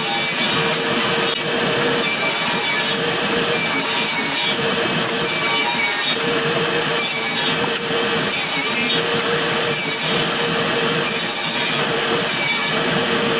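A saw cutting through wooden boards, running steadily with a constant whine underneath.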